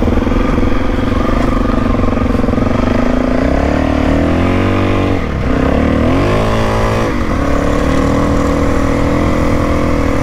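Suzuki DR-Z400E's single-cylinder four-stroke engine under way, with two quick rises in revs, each ending in a drop as it shifts up, about four to seven seconds in, then settling to a steady cruise.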